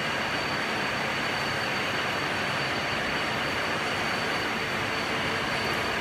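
Heavy roll turning lathe running: a steady, unbroken machine noise with a thin high whine held at one pitch.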